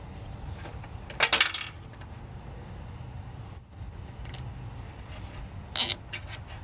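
Short metallic clinks and rattles from handling hardware and tools while fitting parts inside an air conditioner unit: a quick cluster about a second in and another near the end.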